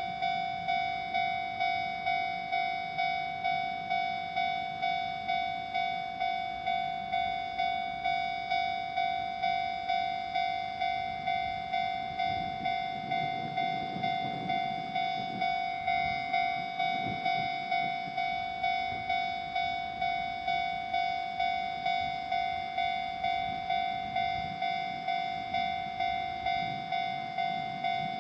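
Japanese level-crossing warning bell ringing steadily in a quick repeating ding-ding pattern, about two strokes a second. A low rumble swells and fades around the middle, fitting a train going over the crossing.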